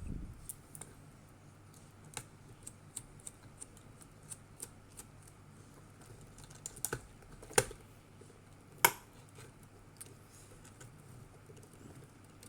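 Scattered sharp clicks and taps of small plastic robot parts being handled as the head is worked loose, with two louder clicks about two thirds of the way through.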